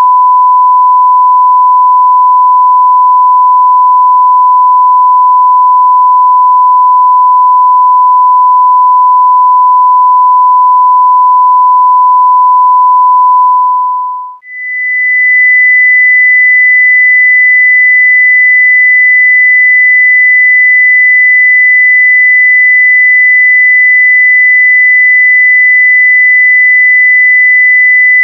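A pure 1000 Hz sine test tone, held steady, fades out about halfway through. A steady 2000 Hz sine test tone follows straight away.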